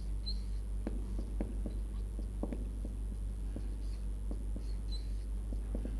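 Marker pen writing on a whiteboard: a run of light, irregular taps and scratches as the strokes are drawn, with two brief squeaks of the tip, over a steady low hum.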